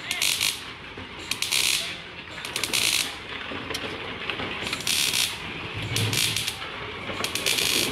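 MIG welder arc crackling in short bursts of about half a second, six or so in all, as a steel exhaust pipe is stitch-welded to its tip.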